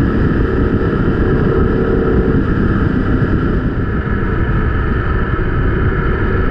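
BMW GS boxer-twin motorcycle running at a steady cruise, heard from on the bike, with wind and road noise; an even, unchanging engine note with no revving.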